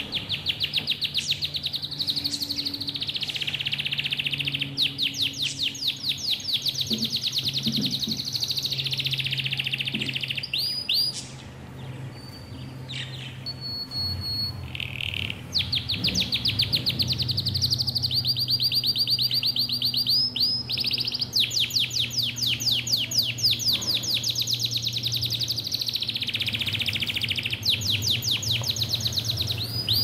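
Budgerigars chirping in long runs of rapid, evenly spaced chirps, with a lull of a few seconds near the middle. A low steady hum runs underneath.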